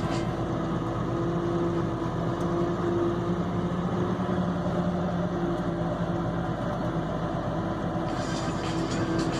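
Truck engine running steadily at one pitch, with a hiss in the highs that strengthens about eight seconds in.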